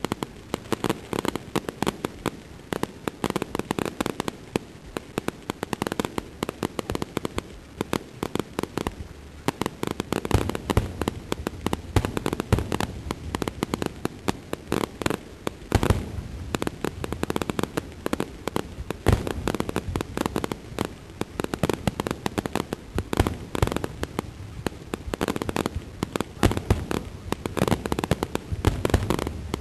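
Fireworks display: a dense, continuous run of bangs and crackles from bursting shells. Heavier, deeper booms come in among them from about ten seconds in.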